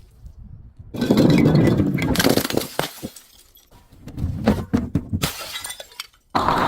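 Glass being crushed and shattering: a loud crunching break about a second in, followed by crackling and grinding of the broken pieces, another crunch midway, and a fresh loud break near the end.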